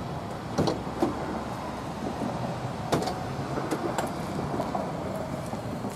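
Rear cargo doors of a Sprinter van being unlatched and swung open: a few sharp clicks and clunks, about half a second in, at one second and near three seconds, over a steady low hum.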